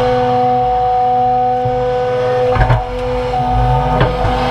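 John Deere 200 hydraulic excavator running under load, its engine and hydraulics giving a steady whine, with a couple of short knocks about midway and near the end as the bucket works a stump out of the mud.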